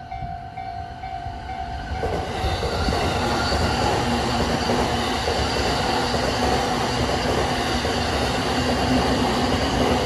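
Japanese level-crossing warning bell ringing, then from about two seconds in an electric commuter train passing, its rumble and wheel noise swelling and drowning the bell.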